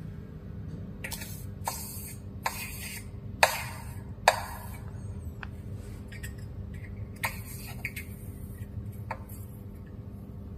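Soldering iron melting solder wire against an aluminium bar: scattered soft clicks and brief sizzling hisses, the two loudest about three and a half and four seconds in, over a steady low hum.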